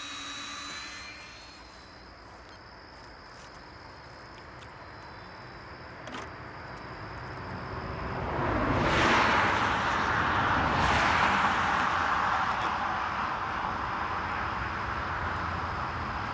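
A road vehicle passing close by on a highway: tyre and road noise swells about eight seconds in, peaks and then slowly fades.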